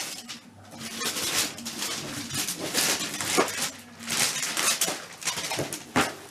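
Wrapping paper rustling and tearing in uneven bursts as a child unwraps a boxed gift, with a few sharp knocks from the box being handled.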